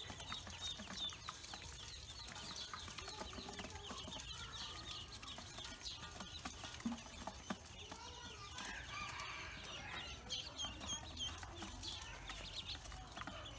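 A brood of young Pekin ducklings peeping: many short, high chirps overlapping continuously.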